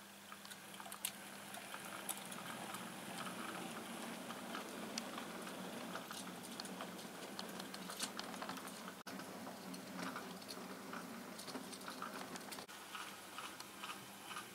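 OO gauge model train running over the track: light, irregular clicking of small metal wheels over rail joints and points, which settles into a more regular clicking near the end, over a steady low hum.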